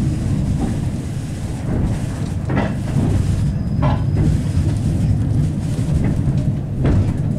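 A 71-931M «Vityaz-Moscow» tram running along the track, heard from inside the car: a steady low rumble of wheels and running gear, with a few brief knocks about two and a half, four and seven seconds in.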